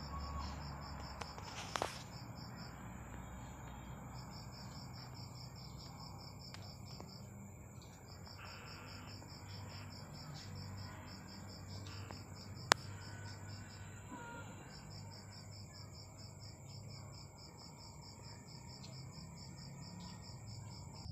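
A cricket chirping in long trains of rapid, even pulses, repeated with short breaks. A single sharp click sounds a little past halfway.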